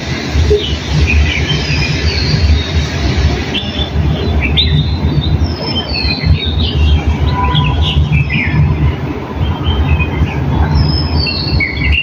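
Small birds chirping and whistling, many short overlapping calls coming and going, over a steady low rumble.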